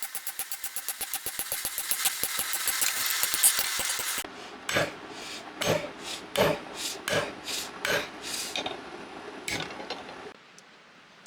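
About four seconds of fast scraping on metal, some ten strokes a second and growing louder. Then about eight separate ringing hammer blows on the spring-steel blade being forged, before it goes quiet about a second from the end.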